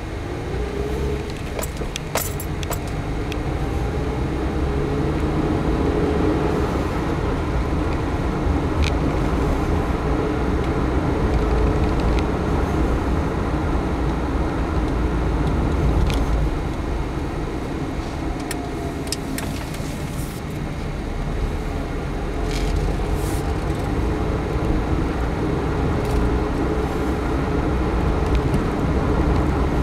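Car engine and tyre noise heard from inside the car while driving, the engine note rising as it pulls away and again later after a lull. A few sharp clicks or rattles sound here and there.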